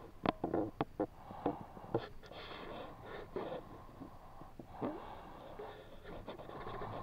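Hands working inside a wet nylon-mesh collapsible fish trap, the netting rustling and giving irregular sharp clicks and crackles as the catch is picked out; the clicks come thickest in the first two seconds.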